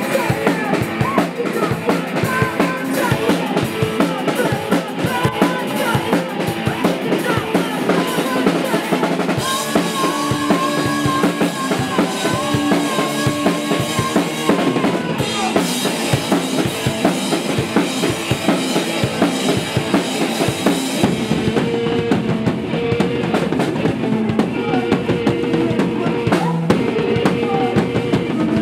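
Live rock band playing loud: electric guitar over a steadily pounding drum kit, with a few held guitar notes in the middle.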